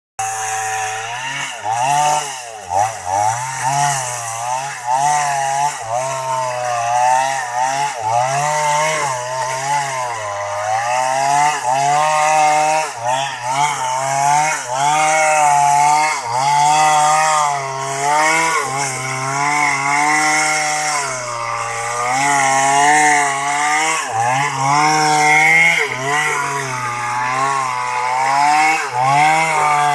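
Small chainsaw running under load as it cuts into a tree, its engine note repeatedly dipping and recovering as the chain bites into the wood.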